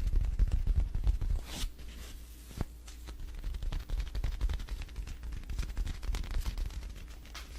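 Fridge restocking: rapid small clicks, taps and knocks of items being handled and set down, with a low handling rumble beneath. It is busiest in the first second or so, with a couple of sharper knocks soon after.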